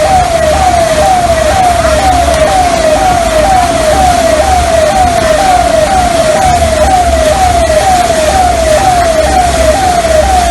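A siren tone sweeping down in pitch over and over, a little more than twice a second, over a steady loud rumble and hiss.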